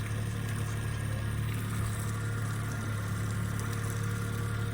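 A boat's outboard motor running at a steady low speed, giving an even, unbroken hum.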